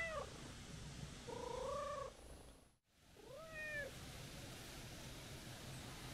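Calico cat meowing three times: short, arching mews, the middle one longer and steadier.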